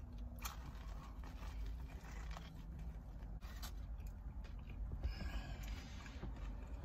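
A person chewing a mouthful of fried chicken sandwich with mouth closed: soft wet mouth sounds and a few faint clicks, over a low steady rumble.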